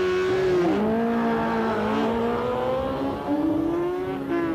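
Two drag-race motorcycles launching from the start line and accelerating hard. Their engines climb in pitch, with a drop about a second in as they change up a gear.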